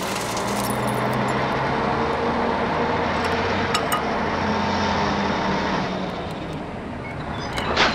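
Heavy truck engine running steadily with a faint whine, dying away about six seconds in; a short sharp sound follows near the end.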